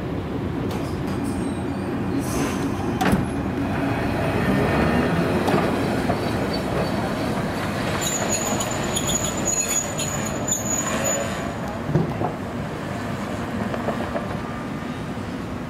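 Milan Peter Witt tram of the 1928 design running on street track: a steady rumble of motors and wheels with a few clanks. About halfway through comes a thin, high squeal of the wheels on the curve lasting a few seconds.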